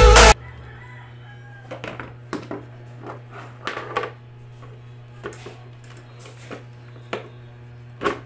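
Hard plastic parts of a stand fan clicking and knocking as the round base and the upright pole are handled and fitted together: a dozen or so light, irregular knocks, the loudest about four seconds in and near the end, over a steady low hum. Background music cuts off right at the start.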